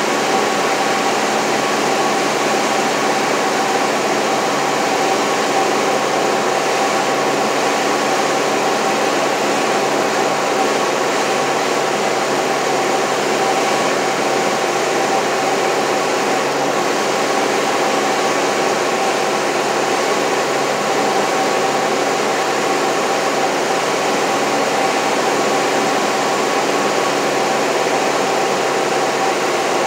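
Light aircraft's piston engine and propeller running at a steady setting, heard from inside the cabin as an even drone with a few steady tones over it.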